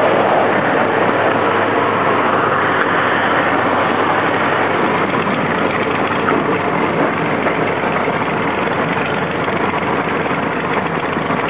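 Curtiss P-40's Allison V-12 engine and propeller running, heard from inside the cockpit as the fighter rolls along the runway: a loud, steady mix of engine noise and rushing air.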